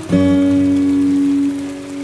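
Acoustic guitar playing a hymn tune: one chord plucked just after the start and held for about a second and a half before it fades, over a steady hiss of rain.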